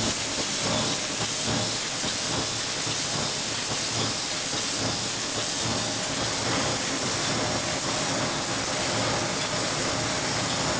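Sheet-fed paper bag machine for shopping bags running: a steady loud hiss with a faint rapid mechanical rattle underneath.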